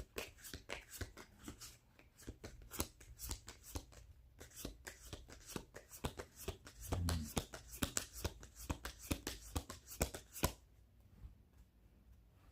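A deck of spirit-animal oracle cards being shuffled by hand: a long run of quick card flicks and riffles that stops about two seconds before the end.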